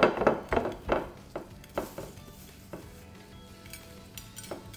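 Gloved hand rubbing and patting dry spice rub into a large raw tomahawk steak on a plate. A quick series of scuffing strokes, about three a second, for the first two seconds, then fewer and softer ones.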